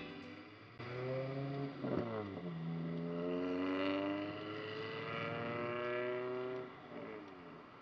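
Honda Ruckus scooter's 49cc single-cylinder engine pulling away from a stop, its pitch rising slowly and steadily for several seconds, then easing off briefly near the end.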